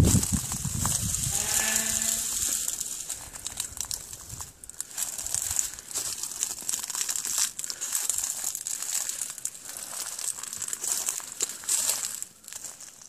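Rusty iron gate being unbolted and swung open: a clank and rattle, then a drawn-out creaking squeal about a second in, followed by footsteps crunching over dry leaves and gravel under a steady high hiss.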